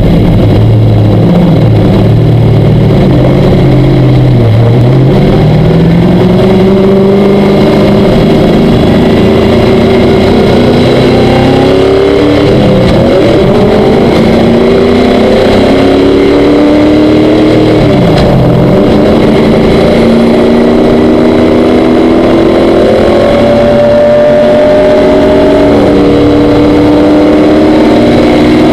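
Stock car's V8 engine heard loud from inside the cockpit, accelerating through the gears. The pitch climbs, drops sharply at each of three upshifts, then climbs again and holds steadier at speed.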